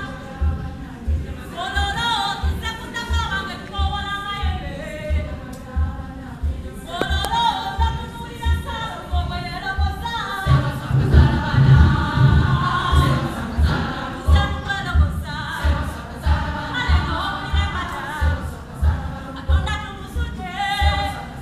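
A choir singing a Ganda song over a steady low beat, about two beats a second. The singing grows fuller and louder about halfway through.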